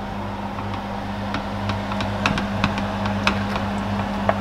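Wooden spatula stirring thick, starchy coconut pudding in a stainless steel pan, with irregular scrapes and light knocks against the pan. Under it runs a steady low hum.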